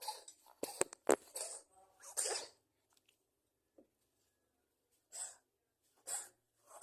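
A cat coughing: a quick run of short, breathy bursts in the first two and a half seconds, then after a pause two more single bursts near the end.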